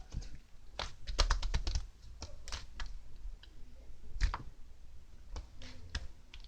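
Irregular light clicks and taps, several in quick succession about a second in, then more scattered ones.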